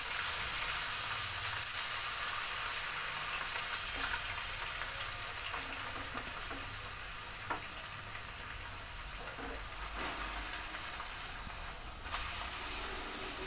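Spiced mola carplet fish sizzling steadily in mustard oil in a non-stick wok, with a few light spatula taps and scrapes as the fish is stirred.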